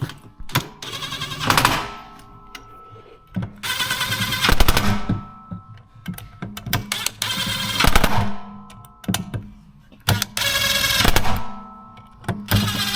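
Power drill-driver driving screws in five short bursts, each a fast rattle lasting about a second, with pauses between them.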